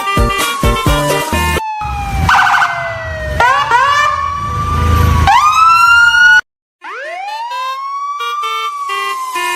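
Siren wailing: four sweeps that rise quickly and fall slowly, the last cut off abruptly by a brief dropout about six and a half seconds in, with background music underneath.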